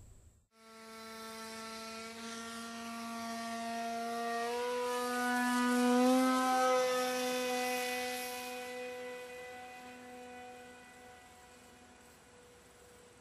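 Electric RC model plane's motor and propeller whining under power, a steady pitched drone that steps up in pitch about four seconds in, is loudest around six seconds in, and then fades away.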